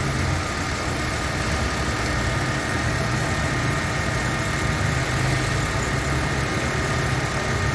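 Mitsubishi Mirage's three-cylinder engine idling steadily with the air-conditioning compressor engaged, a faint steady high whine running over the engine hum.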